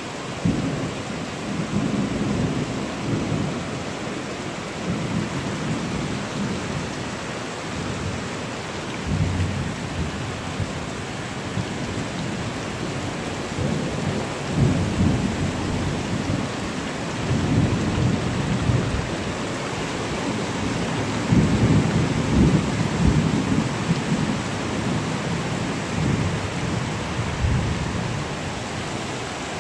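Heavy rain pouring onto a paved car park and parked cars, a steady hiss, with repeated low rumbling swells that come and go every few seconds.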